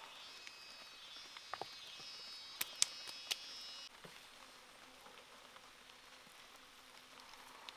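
Insect chirring: a steady high buzz that cuts off abruptly about four seconds in, with a few sharp clicks during it, then a soft background hiss.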